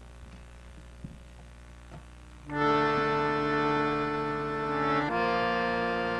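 A harmonium starts playing a sustained chord about two and a half seconds in, after a quiet stretch with a few faint knocks, and moves to a new held chord about halfway through.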